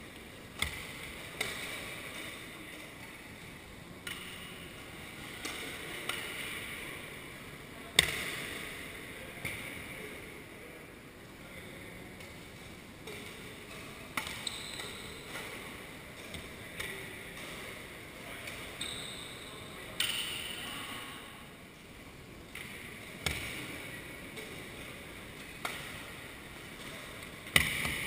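Badminton rackets striking a shuttlecock during rallies: sharp hits at uneven gaps of about a second to a few seconds, each echoing briefly in a large sports hall.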